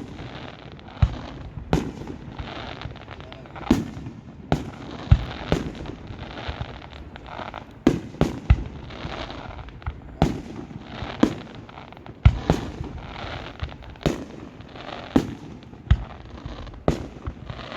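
Aerial fireworks display: shells bursting in a steady run of sharp bangs, one or two a second, with crackling between them.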